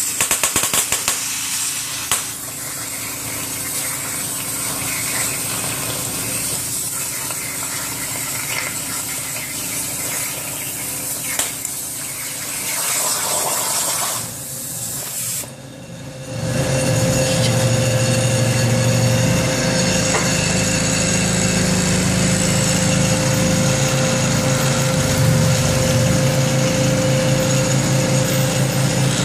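Oxy-fuel cutting torch piercing and cutting steel plate: a loud hiss with fast crackling as sparks blow off the cut, sharpest in the first couple of seconds. About 16 seconds in it gives way to a louder, steady low drone with a thin higher tone over it.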